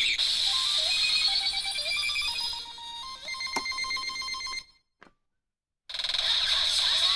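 Electronic pachinko-machine sound effects from a hobby-built sound circuit: fast warbling beeps and short stepped tones like a ringtone. They cut off about four and a half seconds in, and after about a second a new effect of quick chirping pitch sweeps starts.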